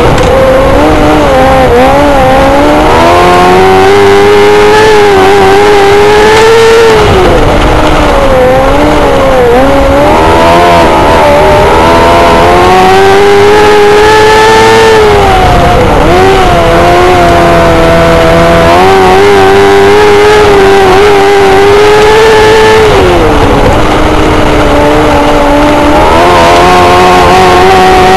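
Micro sprint cars racing, their motorcycle-based engines running at high revs. Their pitch rises and falls every few seconds as the cars accelerate and lift off the throttle around the oval. Very loud throughout.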